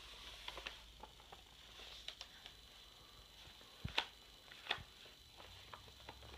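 Light scattered taps and clicks of a toddler's crayon and pencil on a paper drawing pad on a wooden table, with two louder knocks about four seconds in.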